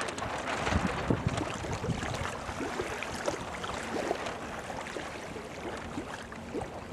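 Wind buffeting the microphone over water lapping and splashing in small irregular splashes.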